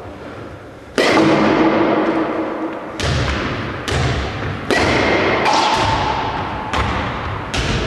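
Sharp knocks of balls being hit with a baseball bat and striking the walls and floor of a sports hall, about eight at irregular intervals, each followed by a long hall echo, some with a brief ringing tone.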